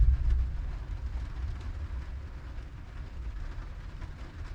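Storm wind gusting against the van, a low, uneven rumble that is loudest right at the start and then eases off.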